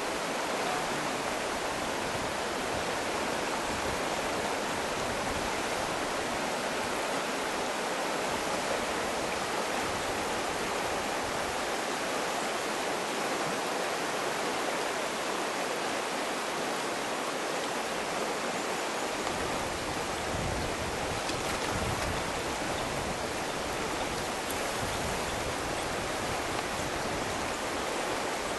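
Fast, shallow river water rushing over stones in a broken, streamy run, a steady wash of noise.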